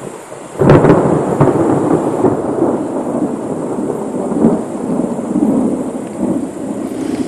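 Thunder: a sudden loud clap about half a second in, then a long rolling rumble that swells and fades.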